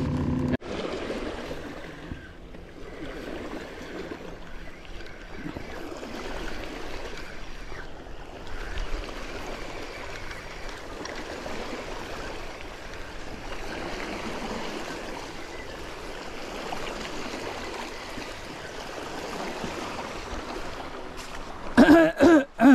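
Steady rushing of a narrow river's flowing water. A humming motor-like tone cuts off about half a second in, and a person's voice sounds briefly near the end.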